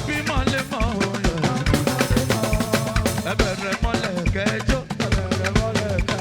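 Live band playing upbeat African gospel music, a drum kit keeping a steady, busy beat under pitched instruments.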